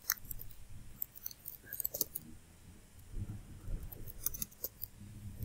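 Quiet typing on a computer keyboard: irregular keystroke clicks in short runs.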